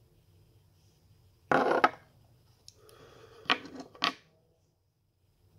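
A small smoking pipe and lighter being handled and set down on a hard surface: a clatter about a second and a half in, a soft scrape, then two sharp knocks about half a second apart.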